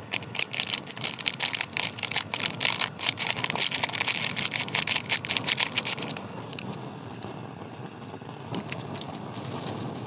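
Steady rain, with a dense run of sharp pattering drops for about the first six seconds that then thins to a few scattered taps.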